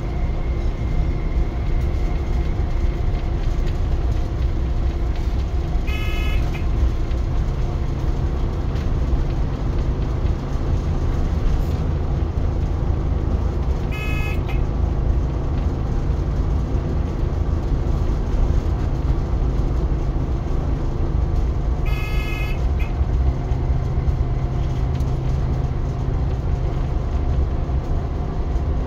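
British Rail Class 139 Parry People Mover railcar running along the track, heard from the driver's cab as a steady low drone. A short electronic beep sounds in the cab three times, about eight seconds apart.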